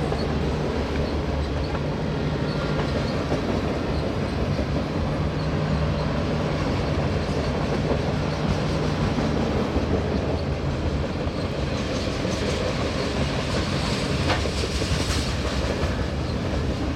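Refrigerated boxcars of a freight train rolling past: a steady rumble of steel wheels on the rails, with a few sharp clicks in the later part.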